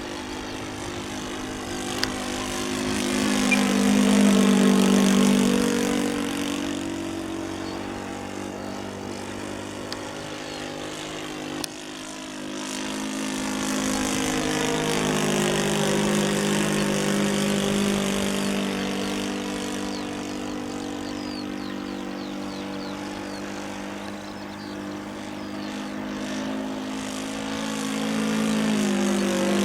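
OS 95 glow engine of a radio-controlled Gipsy Moth scale model in flight, its propeller drone holding a steady note. It swells and fades as the plane makes passes, loudest about four seconds in, again around the middle, and near the end.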